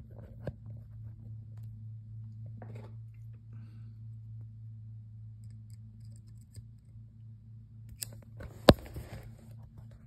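Snap ring pliers and a steel snap ring being handled: a few light metallic clicks, then two sharp metal clicks near the end, the second the loudest. A steady low hum runs underneath.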